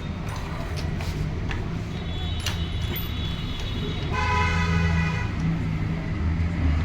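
Steady low engine rumble, with a car horn sounding once for about a second about four seconds in.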